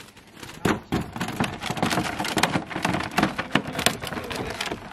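Water splashing and dripping as a landing net is lifted out of a dock-side holding tank with crayfish in it and emptied into a plastic tub: a dense, irregular patter of splashes and knocks that starts about half a second in.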